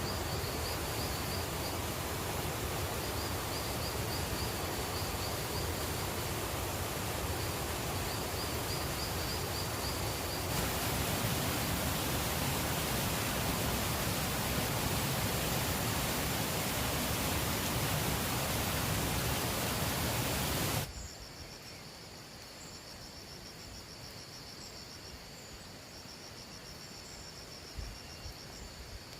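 Steady heavy rain hissing, getting louder about a third of the way in, with insects trilling faintly through it. It cuts off abruptly about two-thirds of the way in, leaving a quieter background of crickets chirping in a steady pulsing rhythm.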